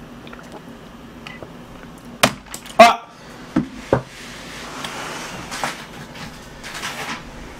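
Objects being handled at a table: several sharp knocks and clicks a little over two seconds in, the loudest near the middle, then a stretch of soft rustling.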